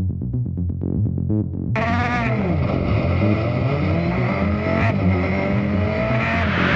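Background music with a beat, muffled for the first couple of seconds and then opening out to full sound, with a rally car's engine revving up and down through the gears over it.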